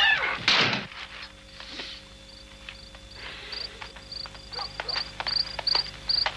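Hurried footsteps and knocks, with a loud sudden sound falling in pitch just after the start. Crickets chirp in a steady high pulse, about three to four chirps a second, from about two seconds in.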